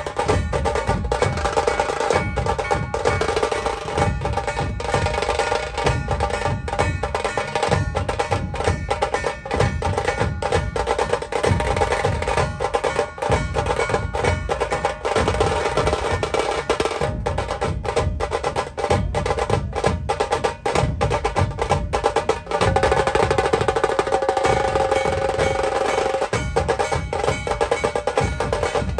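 Loud music of fast, dense drumming with held melodic tones over it.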